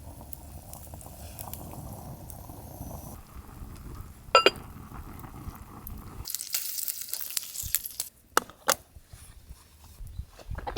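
Camp cooking sounds: a pot simmering with a low bubbling, then one sharp ringing clink about four seconds in. Near the middle comes a couple of seconds of hissing, then a few sharp clicks.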